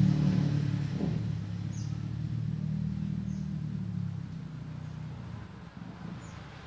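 A motor vehicle's engine running, loudest at the start and fading away over about four seconds, with a few short high chirps above it.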